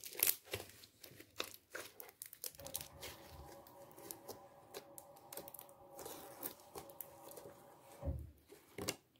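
Silver glitter slime being pressed, squeezed and stretched by hand, giving a stream of sticky crackling and popping clicks. A dull low thump comes near the end.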